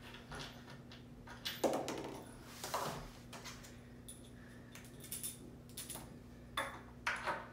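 Scattered light clinks, taps and rustles of hands handling screws and furniture hardware on a chair leg, with a cordless drill set down on cardboard. No drill motor runs.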